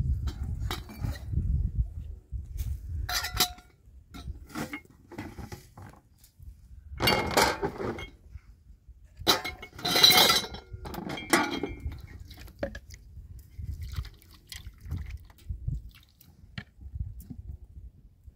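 Metal dishes (a kettle, a metal tray and lid) knocking and clinking against each other in a plastic washing basin as they are washed by hand, with some water splashing. The clatter comes in irregular bursts, loudest about ten seconds in.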